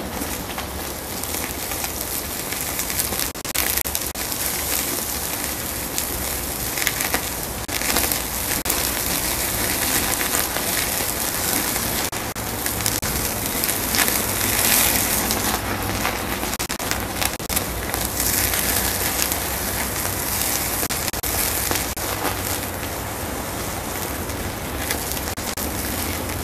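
Meat sizzling on a grill grate over an open fire, a steady hiss with scattered crackles and pops from the flames.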